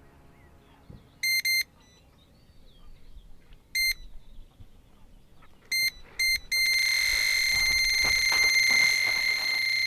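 Electronic carp-style bite alarm sounding as a tench takes the bait: a few separate bleeps, then from about six and a half seconds a continuous tone as line is pulled off the reel in a full run.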